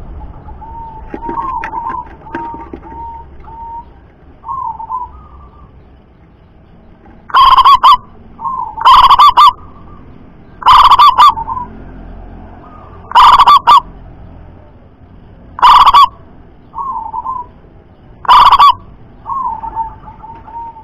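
Caged zebra dove (perkutut) cooing: soft, quick rolling coos at first, then from about seven seconds in six very loud notes, two to three seconds apart, each followed by softer coos.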